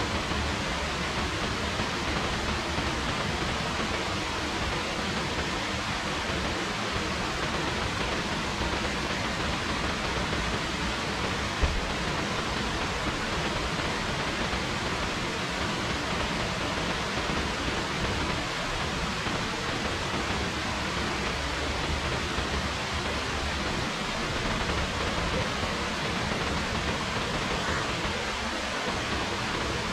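Steady rain, an even hiss with no let-up, with one brief click about twelve seconds in.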